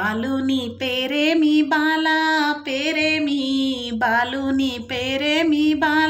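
A woman singing unaccompanied in slow, drawn-out phrases with long held notes. It is a Telangana folk song sung while turmeric is rubbed on the bride and groom before a wedding.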